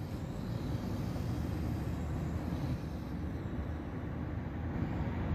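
Diesel engine of heavy site machinery running with a steady low rumble.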